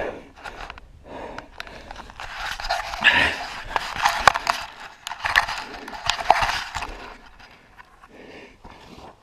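Grass and dry soil rustling and crackling as a hand pushes through them and scrapes at the mouth of a burrow, loudest in the middle, with a man breathing hard throughout.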